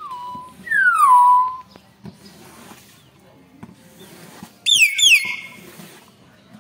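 Nias hill myna giving loud whistles. Two falling whistles that level off come in the first two seconds, the second louder and held. About five seconds in come two quick, higher whistles that drop sharply, the second drawn out.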